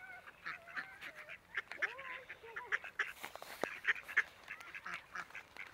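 A flock of mallards and mute swans calling close by, many overlapping short quacks and brief calls that rise and fall in pitch.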